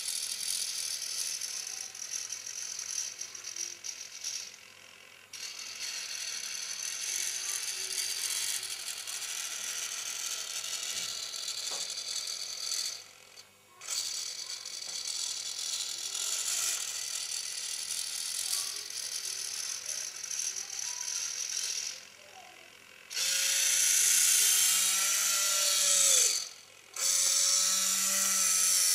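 Tilt drive of a homemade camera sphere, an electric motor turning a toothed gear, running as a gritty mechanical gear whirr in long stretches with short stops. From about two-thirds of the way in the runs get louder and carry a motor whine that bends up and down in pitch.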